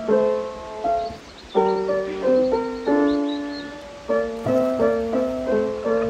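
Background music: a soft solo piano playing a gentle melody over chords, notes struck every half second to a second and left to fade.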